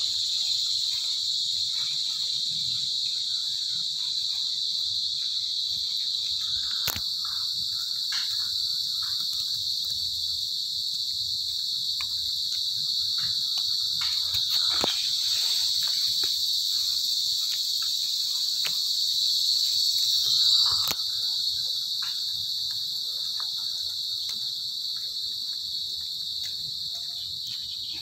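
Dense, steady high-pitched chorus of insects shrilling without pause, swelling a little about two-thirds of the way in. A few faint sharp clicks sound over it.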